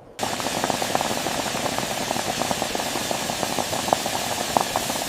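Pot of water at a rolling boil, bubbling hard with a dense, steady crackle of popping bubbles that starts abruptly a moment in.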